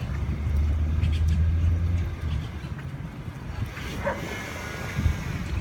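A vehicle's low, steady hum over the first couple of seconds, then a dog's brief whine about four seconds in.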